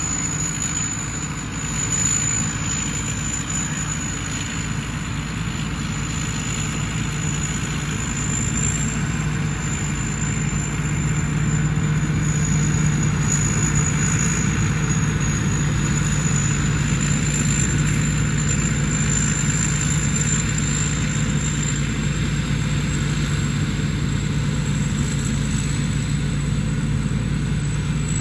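Combine harvester running steadily: a low engine drone with a thin, high whine held above it, growing a little louder about ten seconds in.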